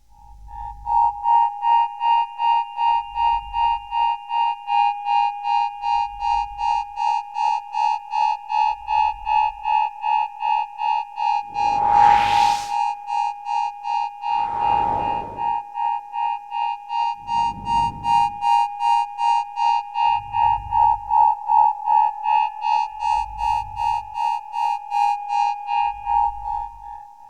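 Electronic synthesizer music: a bright synth note pulsing about three times a second over a deep bass pulse every second and a half, with rushing noise sweeps rising through it about halfway through, the first one the loudest.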